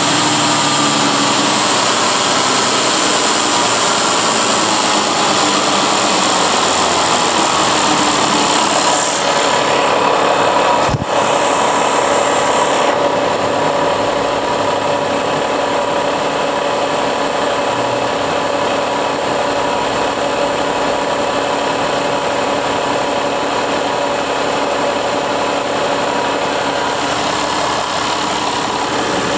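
Mercedes-Benz OM471 inline-six diesel engine running steadily at idle, about 700 rpm. A high whine heard over the engine stops about nine seconds in.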